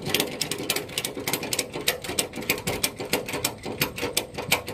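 Ratchet on an 8-point wheel tie-down strap being cranked tight: fast, uneven clicking of the pawl, stopping near the end.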